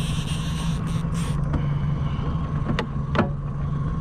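Steady low drone of the fishing boat's motor running at trolling speed, with wind rumble on the microphone. Two sharp knocks come near the end, the second louder.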